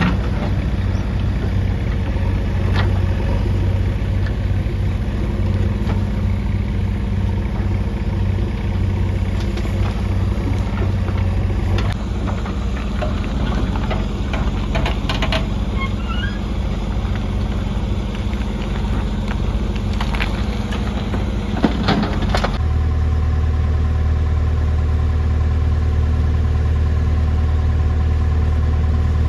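JCB 3DX backhoe loader's diesel engine running steadily while it digs and loads, with scattered knocks and scrapes of the bucket and stones. About three-quarters of the way through the sound cuts to a different, steady engine note as water pours from a pump pipe.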